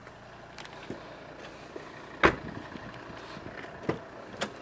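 A Volvo XC90's side door being shut, with one solid thump about halfway through, surrounded by a few lighter clicks and knocks of handling.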